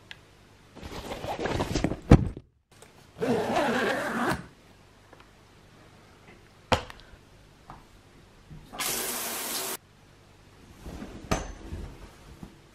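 A string of short, separate household sounds from getting ready at home: several rushing or hissing bursts about a second long, the last one high and hissy, with a few sharp clicks between them.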